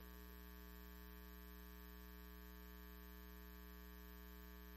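Near silence: a faint, steady electrical hum with its overtones.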